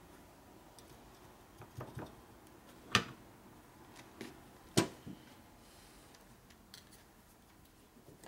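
Clinks and light knocks of small steel Harley transmission parts and a screwdriver being handled, with two sharper metallic clicks about three and five seconds in.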